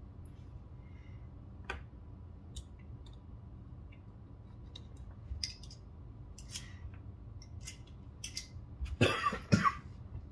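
Scattered light clicks and taps of small Torx screwdrivers being handled over a knife and desk mat, then a louder double cough near the end.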